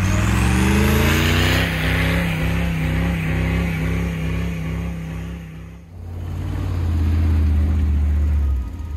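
Square-body Chevy K5 Blazer's engine revving hard under load as it climbs a steep snow slope, its pitch rising and then holding steady. About six seconds in it fades and a second Chevy SUV's engine takes over, running steady under load on the climb.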